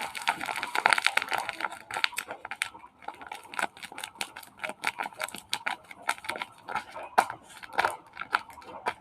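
Crinkling, crackling and clicking of a squishy toy and its plastic packaging being handled. The crackles come fast and dense for the first couple of seconds, then as scattered clicks.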